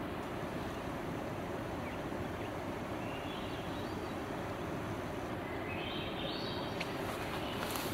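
Steady outdoor background noise with a faint camera hum, and a faint high rising bird trill about six seconds in.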